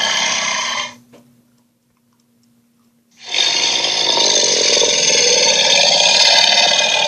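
Cartoon monster's growl sound effect, harsh and rasping. It cuts off about a second in, and after a gap of about two seconds a second, longer growl starts sharply.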